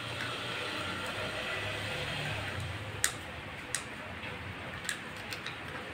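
A few sharp, irregularly spaced plastic clicks as a quartz clock movement's plastic case is handled and pried open, the loudest about three seconds in, over a steady background hiss.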